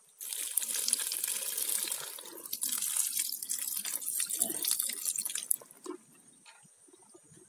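Water splashing and sloshing in a plastic bucket of live freshwater crayfish as a hand stirs and handles them, with small clicks and drips; it stops after about five and a half seconds.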